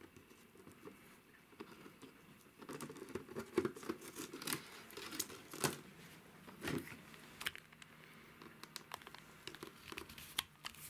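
Faint, irregular clicks, scrapes and rustles of hands working small plastic parts and loose ballast on a model railway baseboard.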